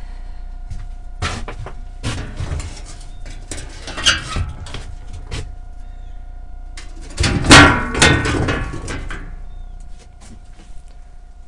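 Footsteps and scattered knocks and clatter, then about seven seconds in a loud scraping rattle as a door is pulled open, lasting about a second and a half.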